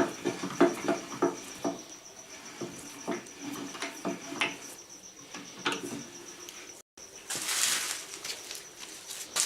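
Irregular light knocks and clicks of a piece of wood and tools being handled, with a brief rustle near the end, over a steady high chirping of crickets.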